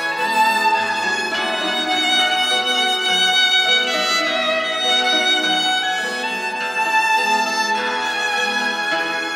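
Violin bowing a fado melody in long held notes, over Portuguese guitar and classical guitar accompaniment.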